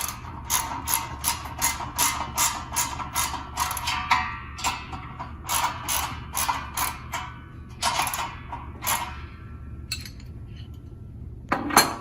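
A 14mm socket ratchet clicking in runs of strokes, about three clicks a second, with short pauses between runs, as the bolts holding a fan pedestal to its base are tightened.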